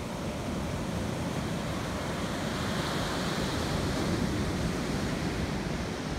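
Ocean surf breaking and washing up the beach, a steady rushing that swells a little about halfway through, with low wind rumble on the microphone.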